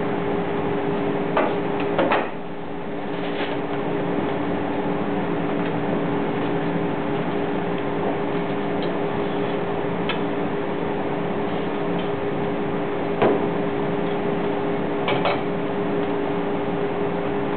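A steady machine hum with two even tones, broken by a few light clicks and knocks: a couple near the start and a few more later.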